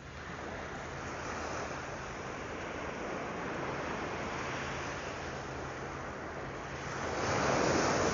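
Surf washing onto a sandy beach, a steady wash of breaking waves that swells to a louder break near the end.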